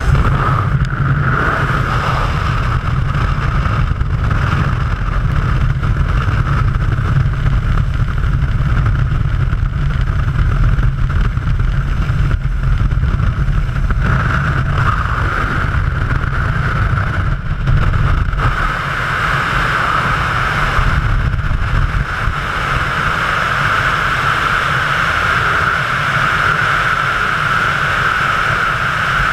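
Loud, steady rushing noise of wind and slipstream on a skydiver's helmet-mounted camera, through the aircraft door and into freefall. The deep rumble thins out about two-thirds of the way through, while a higher rushing hiss grows stronger.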